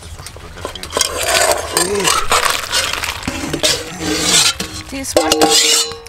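Cooked macaroni shells tipped from a pot into a pot of fried vegetables and stirred with a metal spoon: wet scraping and clinking of metal cookware.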